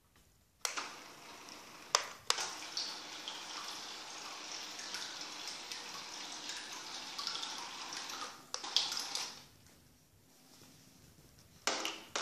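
Small electric motor spinning the propeller of a remote-controlled plastic-bottle raft, churning the bathtub water. It starts suddenly about half a second in, runs steadily for about eight seconds, then comes in short bursts near the end.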